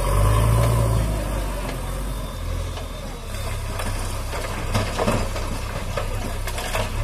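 JCB 3DX backhoe loader's diesel engine running steadily while the loader carries a raised bucket of soil up to a tipper lorry, a little louder in the first second. A few sharp knocks come about five seconds in and again near the end.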